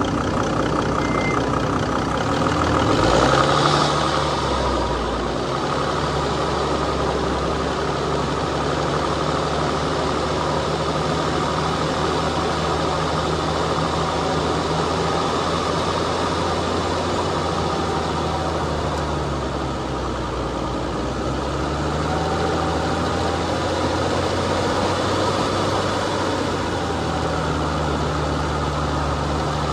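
Off-road vehicle's engine running at low revs while climbing a dirt trail, its note shifting up and down with the throttle. There is a louder surge about three seconds in.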